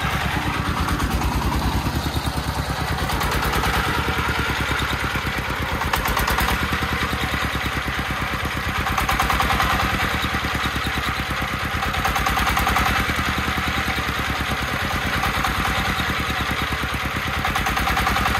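Single-cylinder diesel engine of a công nông three-wheeled farm dump truck running steadily, a rapid even beat with mild swells in loudness.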